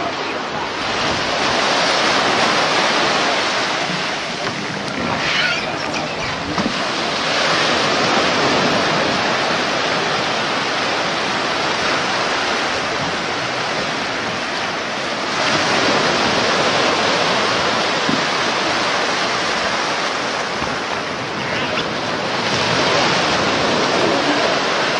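Surf breaking and washing onto the beach: a steady rush that swells and eases in slow surges, about one every six to seven seconds.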